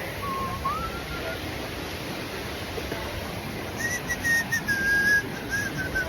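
A person whistling a slow tune, one pure wavering note line gliding up and down, in two phrases with a gap of a couple of seconds in the middle, over the steady rush of falling water.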